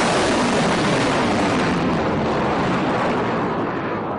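Missile's rocket motor firing at launch: a loud, steady rushing noise that slowly fades near the end as the missile climbs away.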